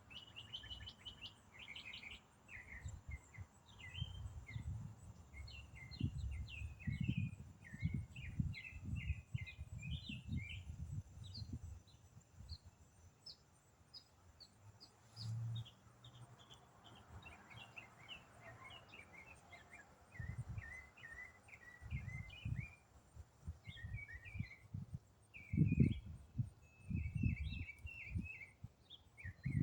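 A songbird singing a long, unbroken song of rapid, varied short notes. It is high-pitched and barely pauses, thinning out only briefly about halfway through. Irregular low rumbles run underneath and are loudest near the end.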